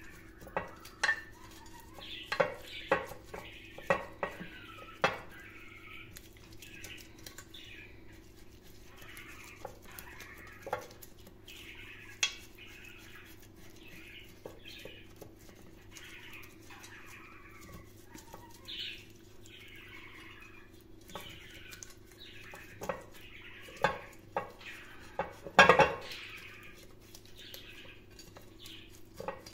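A silicone pastry brush dabbing and scrubbing oil around the inside of a non-stick metal cake mold, with soft wet brushing and scattered sharp taps of the brush against the mold. The loudest knocks come about 26 seconds in.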